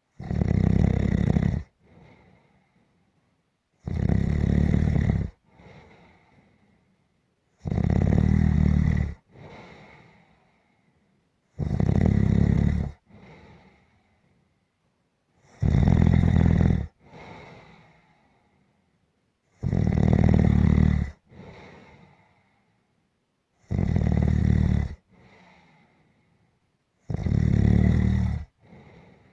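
Snoring in a regular rhythm: a loud snore about every four seconds, eight in all, each lasting over a second and followed by a short, much fainter breath.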